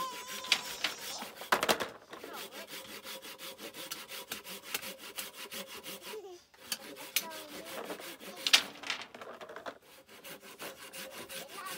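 Hand saw cutting through bamboo in regular back-and-forth strokes, with a few sharper knocks of wood.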